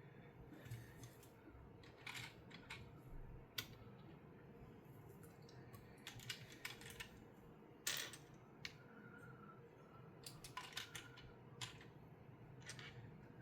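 Small plastic LEGO pieces clicking and tapping as they are handled and dropped into place: scattered single clicks and short clusters of clicks, the loudest a little over three seconds in and about eight seconds in.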